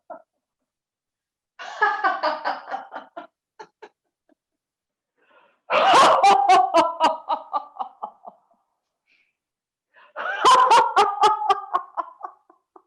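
Three bouts of deliberate laughter-yoga laughter, part of an exercise in which coughing into the elbow is turned into laughing; the second and third bouts start with a sharp burst.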